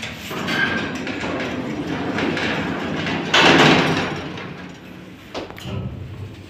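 Automatic sliding doors of a Mogilevliftmash passenger lift opening after a landing call. The noise builds with a loud rush about three and a half seconds in and then fades, with a short click near the end.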